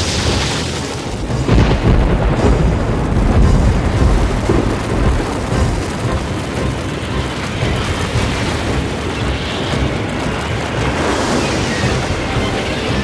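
Animated sound effect of an underwater burst erupting from the seabed, running on as a loud, continuous low rumbling rush as a cloud of marsh gas spreads through the water.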